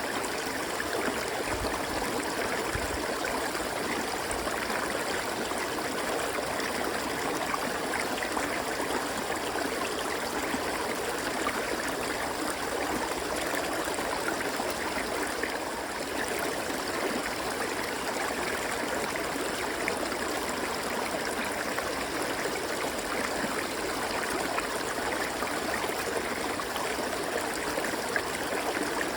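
River water flowing steadily over rocks, an even rushing and babbling with no let-up.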